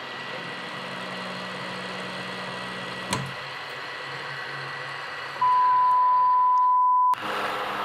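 Milling machine running with a steady hum, broken by one sharp knock about three seconds in. A censor bleep, one steady tone lasting about a second and a half, covers a curse, then the sound cuts abruptly to louder milling of steel.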